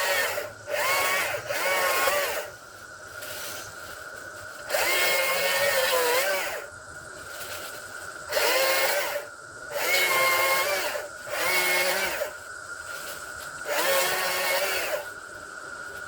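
Small STIHL MSA 120 C battery-powered electric chainsaw run in repeated short bursts of one to two seconds while cutting firewood, its motor whine sagging in pitch in some bursts.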